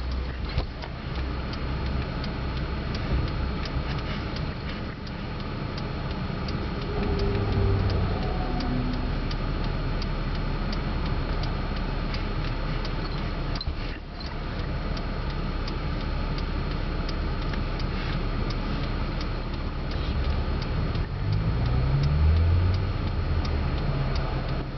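A few brief, faint hums from a baby over a steady room noise, with a regular ticking about twice a second.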